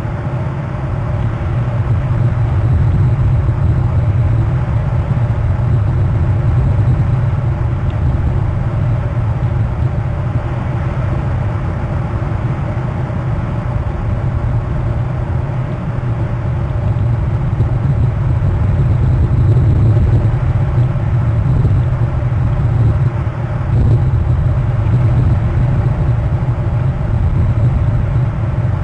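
Steady low rumble of wind buffeting an outdoor camera microphone, rising and falling a little in strength, with no bird calls.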